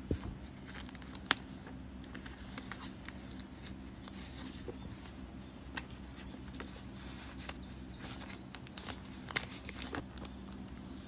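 Paper and a sketchbook being handled by hand: light rustling of pages and a thin protective sheet, with scattered sharp clicks and taps, the loudest about a second in and again near the end, over a faint steady low hum.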